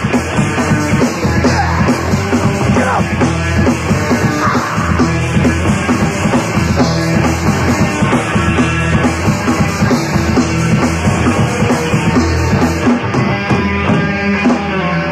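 Punk rock band playing an instrumental passage of the song, with electric guitar and drums and no singing.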